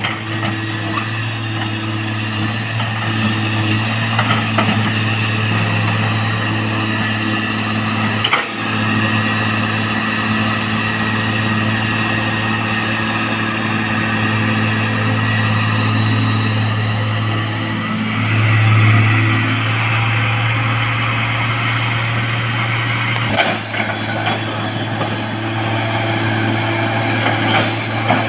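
Heavy-equipment diesel engine running steadily with a deep, even hum, swelling briefly about two-thirds of the way through, with a few sharp knocks scattered through.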